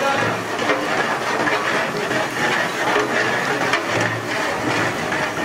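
A long metal paddle stirring and scraping a large pot of mutton curry over a wood fire, against a steady hiss.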